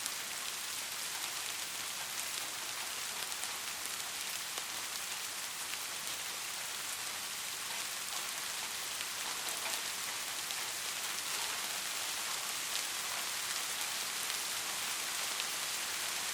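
Steady rain, a dense hiss of drops with scattered sharper drop ticks.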